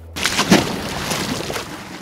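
Water sloshing and churning, a loud rushing noise that starts a moment in and eases slightly toward the end, as the star-nosed mole swims and paws underwater.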